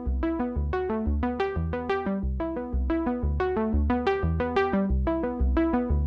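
Background music: a synthesizer or electric-piano line of quick, evenly spaced notes, about four a second, over a steady bass pulse.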